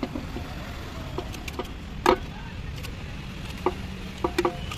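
A metal spoon scraping and knocking against a metal bowl as marinated chicken is pushed out into a pot of fried masala, giving a few sharp clinks, the loudest about two seconds in and several more near the end, over a steady low background rumble.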